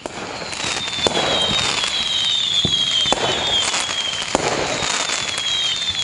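Fireworks sound effect fading in over the first second: continuous crackling, whistles gliding slowly downward over and over, and sharp bangs about every second or so, signalling that the timer has reached zero.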